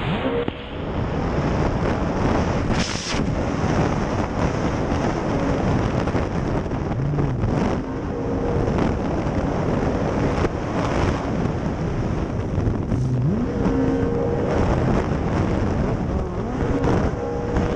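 Racing outboard engine of a tunnel-hull powerboat running at speed, heard onboard under heavy wind noise on the microphone and rushing spray; the engine pitch rises in places.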